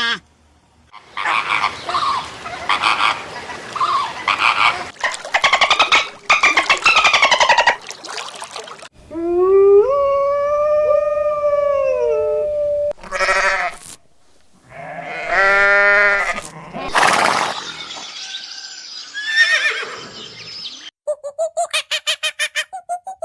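A sequence of different farm animal calls, one after another with short gaps, including a long call that rises and then falls in pitch. Near the end comes a quick run of short repeated calls, about four a second.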